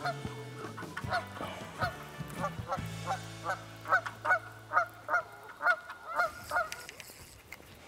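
Canada goose honking in a rapid, regular series of calls, about three a second, stopping a little past six seconds in.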